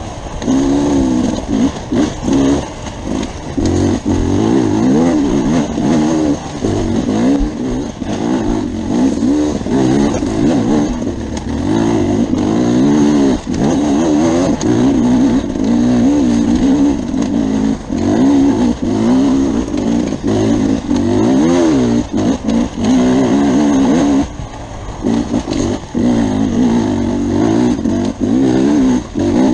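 Beta RR enduro motorcycle engine heard on board, revving up and down constantly under hard throttle on a rough dirt trail, with occasional knocks from the bike over the ground. Near the end the revs drop briefly, then climb again.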